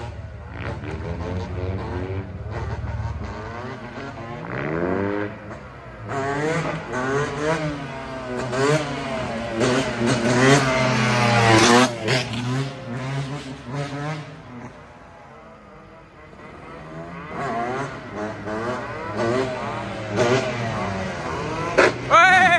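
Motorcycle engine revving hard, its pitch rising and falling again and again as the throttle is worked. It is loudest about ten to twelve seconds in, dies down briefly around fifteen seconds, then picks up again.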